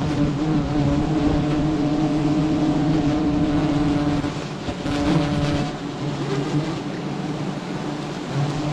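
Dense buzzing hum of a swarm of giant honeybees in flight. It is steady throughout and wavers briefly about halfway through.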